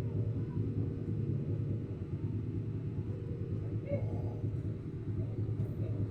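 Steady low background rumble with a constant hum.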